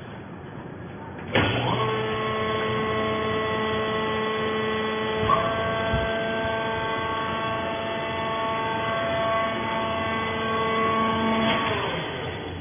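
Hydraulic baler's pump unit running with a steady whining hum as the press platen is raised after a bale has been pressed. It starts abruptly about a second in and cuts off near the end.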